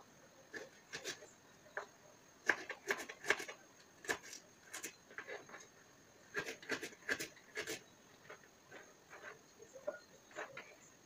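Kitchen knife slicing ginger on a wooden chopping board: irregular knocks of the blade on the board, some single and some in quick runs, with a pause between runs.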